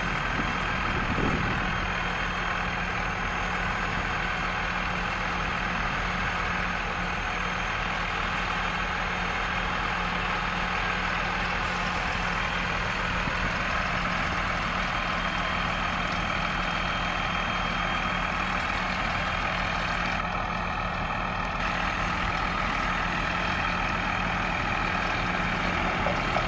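Bulk tanker truck blowing powdered lime through a hose into a Terra Gator 8103 spreader's hopper: a steady engine drone under a constant rush of air.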